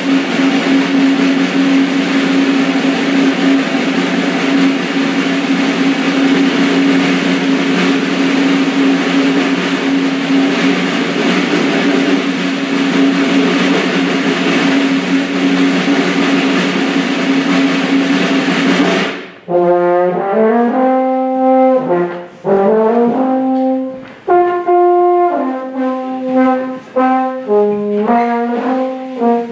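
Live brass instruments playing: a long, loud held chord that breaks off about nineteen seconds in, followed by a tune in short separate notes.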